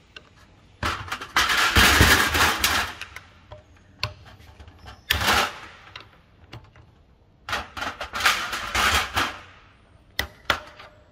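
Flat-blade screwdriver prying an ABS pump motor off its aluminium hydraulic block: metal scraping and rattling in three bursts, about a second in, about five seconds in and around eight seconds, then two sharp clicks near the end.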